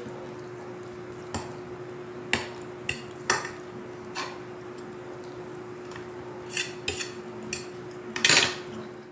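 Spoon and fork clinking and scraping against a plate while rice is scooped up, in irregular single taps, with the loudest cluster near the end. A steady low hum runs underneath.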